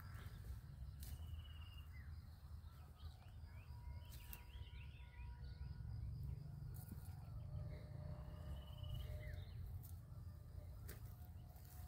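Quiet outdoor ambience: a steady low wind rumble on the microphone with faint bird chirps and short trills now and then, plus a few soft clicks.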